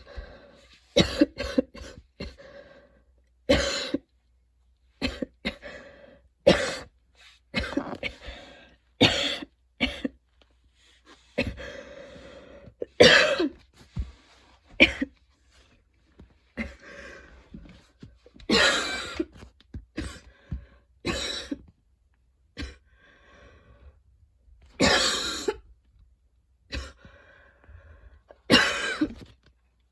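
A woman's long, wheezy coughing fit: a run of harsh coughs in irregular clusters, with fainter breathing between them. The uploader puts the fit down to running, an allergy to freshly cut grass and fatigue.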